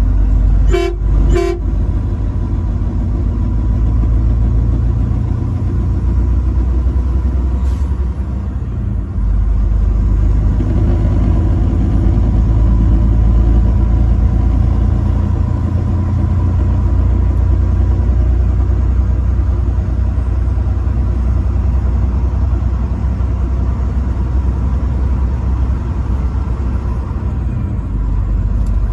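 Truck horn tooted twice in quick succession about a second in, two short blasts. After them comes the steady low rumble of the truck's engine and road noise as it drives.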